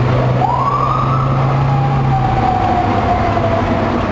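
Police motorcycle siren giving one wail, rising quickly about half a second in and then falling slowly, over steady road and engine noise heard from inside a following car.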